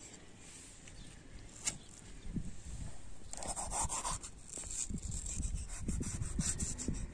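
Kitchen knife on a wooden stump: a single sharp tap about a second and a half in, then from about three seconds in the crisp crunching and scraping of the blade cutting through a red bell pepper, with soft knocks on the wood.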